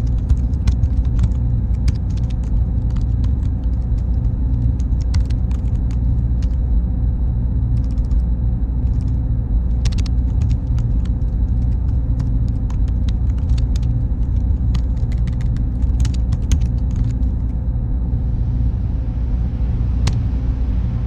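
Computer server room ambience: a steady low hum of machines and cooling fans with a faint constant tone, broken by scattered sharp clicks. A higher hiss joins near the end.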